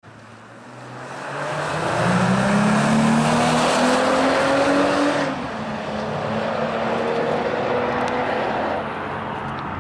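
Mercedes-Benz CLC 350's 3.5-litre V6 through a mariani sport exhaust, accelerating hard: the engine note swells in and climbs for about five seconds, drops sharply as it shifts up, climbs again more gently, then fades away near the end.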